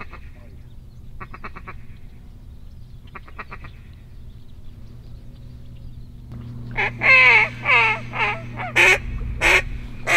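Two short, rapid chattering bursts, then a run of about seven loud hen-mallard quacks, each dropping in pitch, the notes coming shorter and quicker toward the end.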